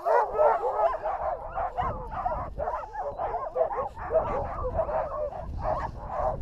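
A team of harnessed sled dogs whining and yipping together, many overlapping rising and falling cries, as the stopped team waits to run. A low rumble comes in about two seconds in.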